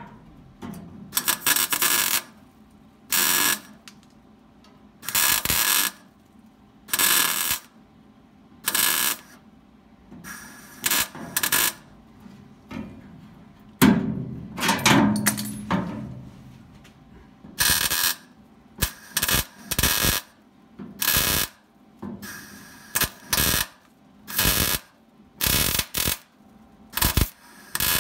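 Wire-feed (MIG) welder tack-welding a steel roll pan to a pickup's rear sheet metal: a string of short welds, each well under a second, with pauses of about a second between them. There is a louder knock about halfway through.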